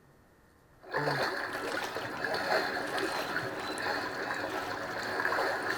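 Running, trickling water: a recorded water sound effect of the kind in a Windows sound theme, starting suddenly about a second in and running on steadily.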